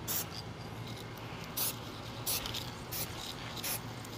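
Aerosol spray paint can giving about five short spritzes through a torn paper stencil, each a brief hiss, over a low steady hum.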